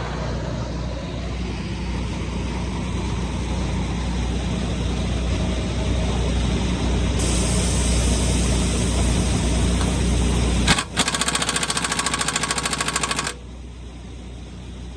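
An air compressor runs steadily. About ten and a half seconds in, a pneumatic impact wrench starts hammering rapidly on the lug bolts of the tractor's dual rear wheel hub, runs for about two and a half seconds, then cuts off suddenly.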